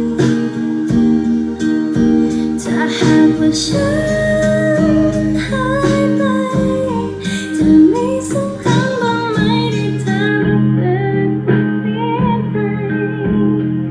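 Music with a female singing voice and plucked guitar, played through a Sound BlasterX Katana soundbar. About ten seconds in the treble drops out suddenly and the sound turns dull.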